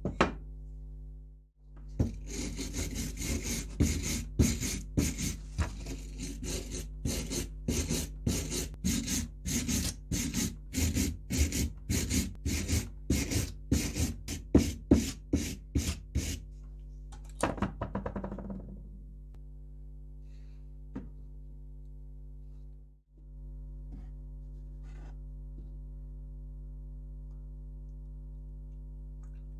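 Hand wire brush scrubbing rust off an iron pine-cone cuckoo clock weight, in quick scraping strokes about two or three a second that stop after about fourteen seconds.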